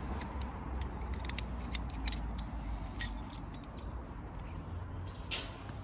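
Light metallic clinks and jingles of a multi-pronged metal grappling hook and pliers being handled, with a louder clink near the end, over a steady low rumble.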